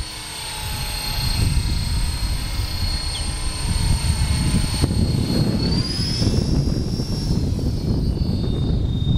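Twister Storm RC helicopter flying overhead: a thin, high whine from its motor and rotor that climbs in pitch about six seconds in, then drops back near the end. A low rumble of wind on the microphone runs underneath.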